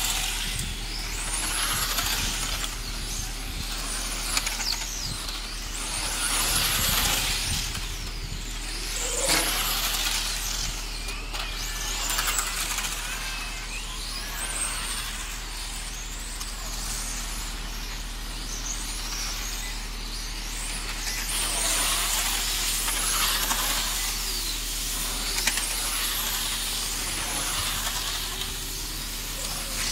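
Pack of PRO10-class electric radio-controlled racing cars lapping the circuit, their motors giving high whines that rise and fall in pitch as the cars speed up, brake and pass. The sound swells and fades in waves every few seconds.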